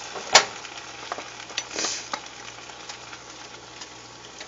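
Asparagus sizzling steadily in a frying pan in garlic sauce, with one sharp knock about a third of a second in and a few lighter clicks and scrapes as it is stirred.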